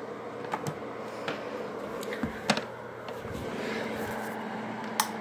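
A steady low hum with scattered clicks and knocks over it, the sharpest about halfway through and another near the end.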